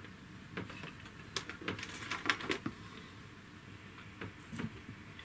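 Light, scattered clicks and knocks of a handheld digital multimeter and its test leads being handled and set down on a workbench, with a small cluster of clicks about two seconds in.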